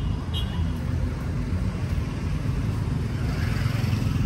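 Steady low rumble of road traffic passing close by, with a rushing hiss that swells near the end as a vehicle goes past.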